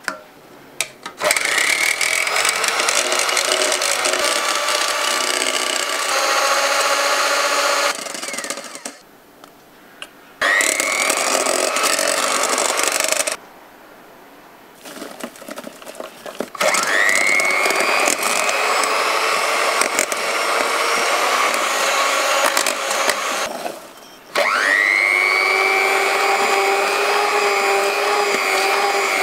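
Electric hand mixer whipping egg whites into meringue in a stainless steel bowl. It runs in four spells with short pauses between them, each start a rising whine as the motor spins up and then holds steady.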